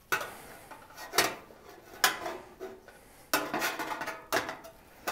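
A small shaped sheet-steel patch piece being handled against a 1932 Ford grille shell while it is trial-fitted: about half a dozen sharp metallic clinks, roughly one a second, each with a short ring.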